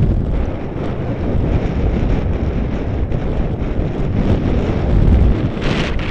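Strong mountain wind buffeting the microphone: a steady, loud, low rumbling roar with no let-up.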